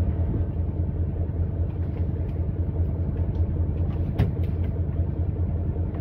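Fishing boat's engine running with a steady low drone, with a few sharp clicks a little after four seconds in.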